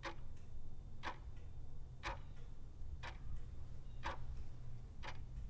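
Countdown-timer clock ticking sound effect: evenly spaced sharp ticks about once a second, over a faint low hum.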